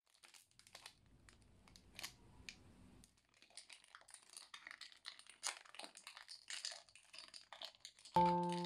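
Plastic ice cream wrapper crinkling and rustling in many quick crackles as hands peel it open and pull the fish-shaped sandwich out. Piano music begins near the end and is louder than the wrapper.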